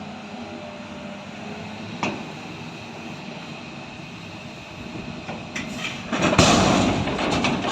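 Freight train wagons being unloaded, with a steady rumble in the background. A single sharp metallic bang comes about two seconds in. From about six seconds a loud clattering rush sets in, dense with knocks.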